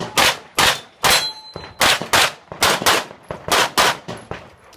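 Handgun fire in a fast course of fire, about ten shots mostly in quick pairs. Faint metallic rings of steel targets being hit follow some of the shots.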